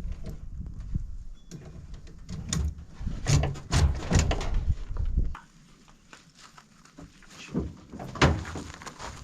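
Scattered knocks and bumps over a low rumble; the rumble cuts off abruptly about five seconds in, leaving a quieter stretch with a couple of sharp knocks near the end.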